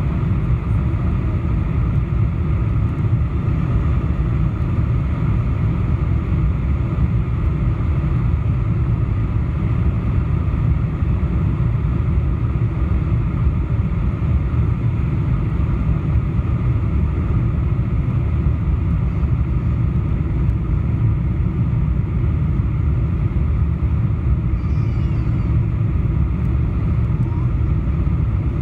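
Steady low roar of Boeing 747-400 cabin noise from a window seat over the wing, with engine and airflow noise during the descent with flaps partly extended.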